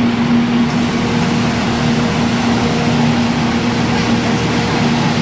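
Straw crusher running steadily while shredding straw: a loud, even mechanical hum with a constant tone under a wash of noise.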